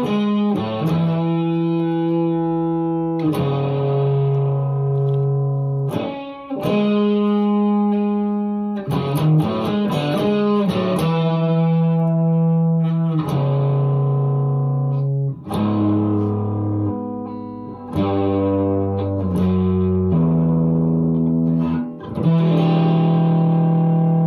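Squier electric guitar played through a distorted amplifier, strumming chords that ring for two or three seconds each, with short breaks at the chord changes.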